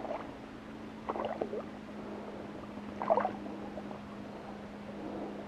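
Hooked largemouth bass splashing and thrashing at the water's surface as it is pulled in, in short bursts about a second in and again about three seconds in, over a steady low hum.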